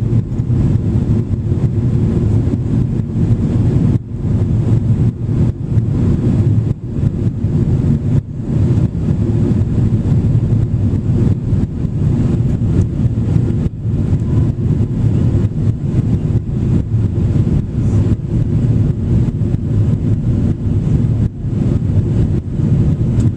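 Steady low roar of cabin noise inside a Boeing 767-400 airliner in flight, the engines and rushing air blended into one deep rumble. The noise briefly dips a handful of times.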